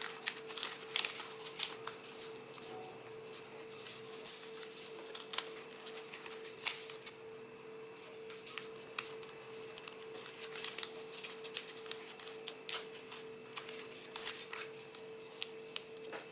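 Origami paper rustling and crackling under the fingers as its triangular pockets are opened and pressed flat, in irregular crisp crinkles. A faint steady hum runs underneath.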